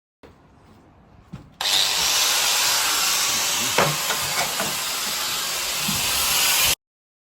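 Power tool cutting into a steel pail can: a loud, steady grinding hiss that starts abruptly about a second and a half in and cuts off suddenly near the end.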